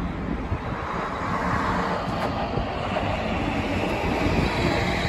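Steady low rumble of a car engine running at an even idle.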